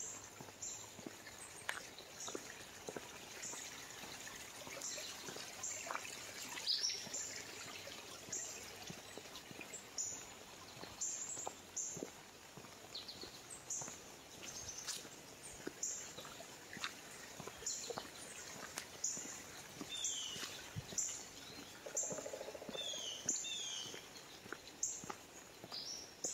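Footsteps on a dirt and leaf-litter woodland trail at a steady walking pace, with birds chirping short downward-sliding notes, several in quick succession near the end.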